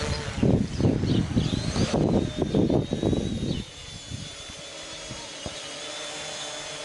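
Homebrew H-frame quadcopter's electric motors and propellers whining in flight. For the first three and a half seconds, heavy gusty rumbling buffets the microphone as the quad passes overhead. Then the buffeting stops, leaving a quieter, steady propeller whine.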